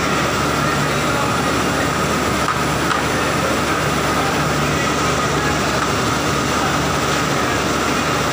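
Banana washing line running: its conveyor belts and drive motors make a continuous, even mechanical drone with a steady whine over it.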